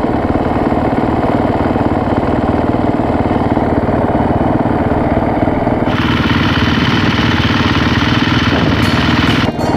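Dirt bike engine idling steadily, with the sound turning brighter and hissier about six seconds in.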